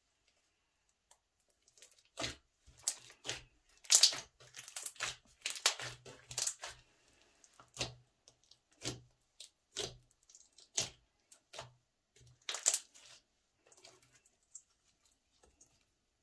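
Thick slime being kneaded, poked with fingertips and stretched by hand, giving an irregular run of sticky clicks, pops and crackles. It starts about two seconds in and is loudest about four seconds in.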